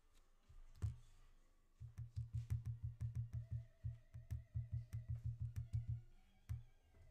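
Typing on a computer keyboard: a quick run of keystrokes, about five or six a second, for about four seconds, with a single knock before and after.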